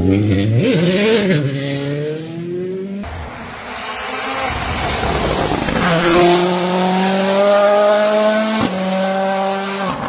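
Rally1 rally cars at speed on tarmac, a Toyota Yaris Rally1 and then an M-Sport Ford Puma Rally1, their turbocharged engines revving hard. The revs rise and fall as the first car takes a corner, then the second car's engine climbs steadily in pitch through a gear, drops sharply at a gearshift near the end and climbs again.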